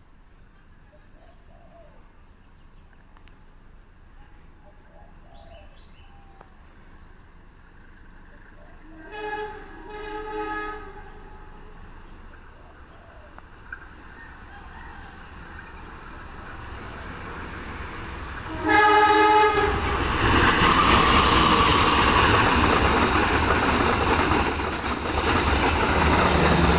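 Diesel-electric CC 206 locomotive hauling a passenger train: its horn blows two short blasts about nine seconds in, then a louder blast near the end as the rumble of the approaching train builds, followed by the loud passing of the locomotive and coaches with clattering wheels.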